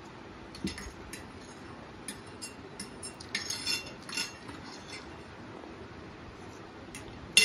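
Fork and spoon clinking against plates, with scattered light clicks and clinks of eating at the table; the clinks bunch up about three to four seconds in, and a sharp clink just before the end is the loudest.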